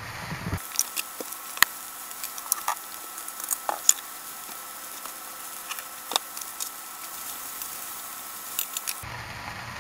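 Steak and sliced onions frying in a hot cast-iron skillet: a steady sizzle full of small crackling pops, with a few sharp clicks.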